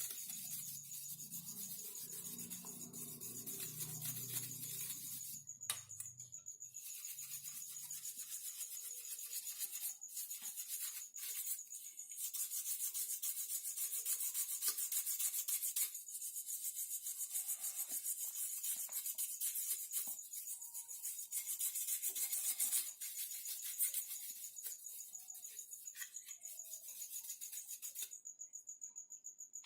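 A brush scrubbing dust off a graphics card and its fan, a dry rubbing hiss of quick, continuous strokes.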